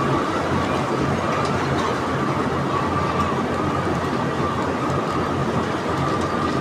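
Steady machinery noise with a constant high whine over a low hum, running without a break.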